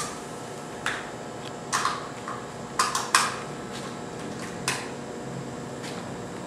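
Cables and their plugs being handled, giving about half a dozen sharp clicks and clacks at irregular intervals over a steady background hum.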